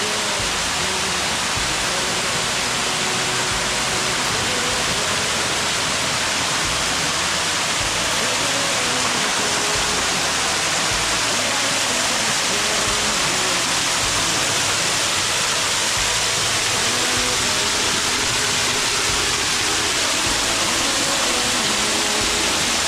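Lost Creek Falls, a small woodland waterfall, heard up close: a loud, steady, even rush of falling water that holds unchanged throughout.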